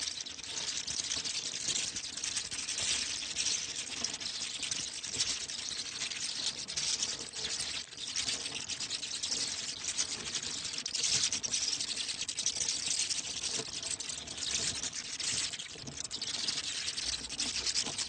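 Bats chittering: a dense, steady crackle of fine rapid clicks and hiss that carries on without a break.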